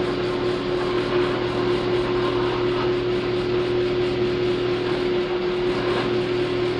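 Drill press motor running steadily with a constant hum while its bit drills dry through a steel square-tube part.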